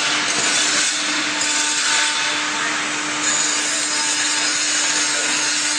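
Steady running noise of woodworking machinery, like a power tool cutting wood, with a constant hum under it.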